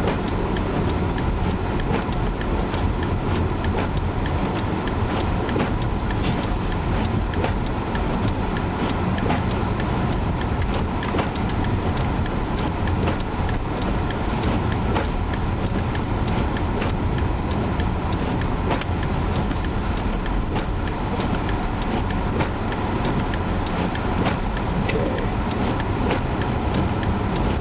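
Steady road and engine noise heard from inside a moving car, a low rumble with light scattered ticks throughout.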